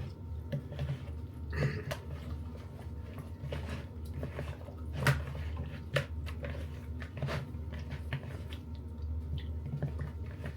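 Hands working marinade into raw chicken: irregular wet squishing and handling noises with a few sharper knocks, the loudest about five seconds in, over a steady low hum.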